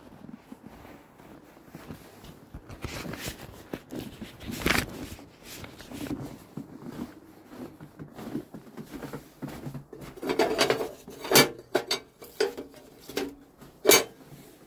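Sheets of paper rustling and being handled against a front door, with several sharp clicks or taps near the end.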